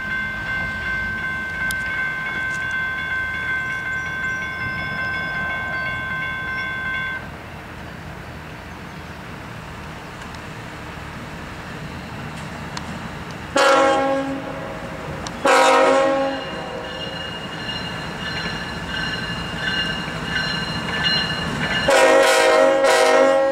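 A CSX GE ET44AH diesel locomotive running light rumbles past at low speed. Its air horn sounds two short blasts about fourteen and sixteen seconds in, then a longer blast near the end, as a horn salute. Early on, a steady high ringing tone runs over the rumble and stops about seven seconds in.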